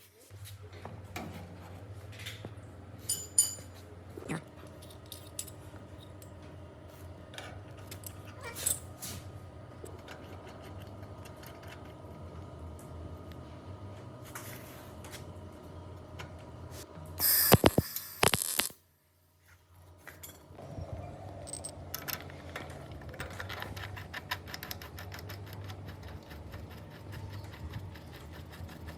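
Light metal clinks and taps over a steady low hum, with a louder burst of clattering a little past the middle.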